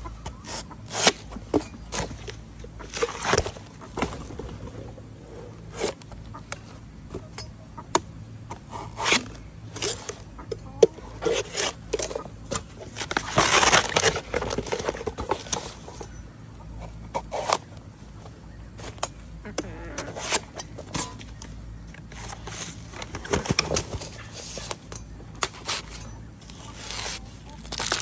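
Bamboo shoots being cut by hand with a blade: irregular sharp chops and clicks, with a few longer scraping strokes, the longest about halfway through.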